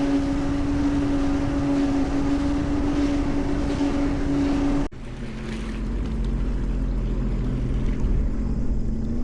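2024 Sea-Doo Explorer Pro 230 personal watercraft running at speed: a steady engine drone over rushing wind and water. About five seconds in the sound breaks off and picks up again with a lower engine note that builds in loudness.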